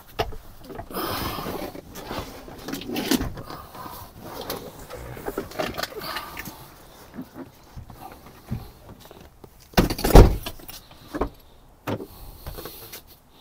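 A power front seat being worked loose and lifted out of a 2003 Mitsubishi Montero Limited: rustling and scraping, with scattered clicks and knocks and one loud thump about ten seconds in.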